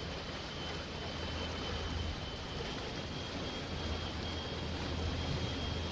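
Storm wind and fast-flowing floodwater: a steady rushing noise with a low rumble under it and a faint, thin high tone held steady.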